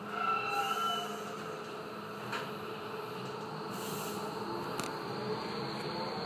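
Docklands Light Railway train's electric traction drive humming and whining as it pulls away from a station, with a short high tone in the first second and a high steady whine coming in about five seconds in.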